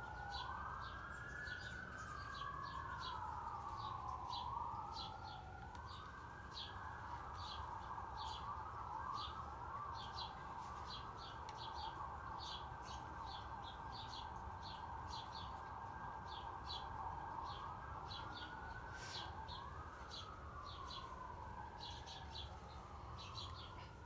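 Emergency vehicle sirens wailing, their slow rising and falling glides overlapping one another, with small birds chirping steadily throughout.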